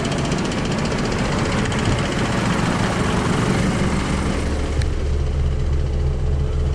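Scania S500 tractor unit's diesel engine idling steadily, with the loose drumming rattle that the driver calls a nasty sound. From about halfway through it becomes a smoother, steadier low hum as heard from inside the cab.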